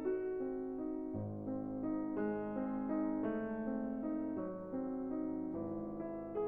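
Background music: a piano or electric piano playing a steady run of notes, a new low note entering about a second in and again near the end.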